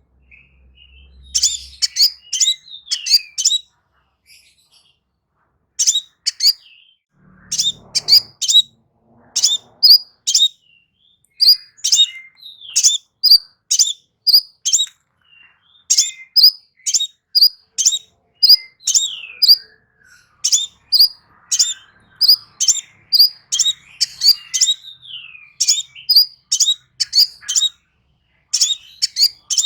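Small songbird singing high, sharp chirps in quick runs of two to four, with now and then a falling slurred note, and a short pause a few seconds in.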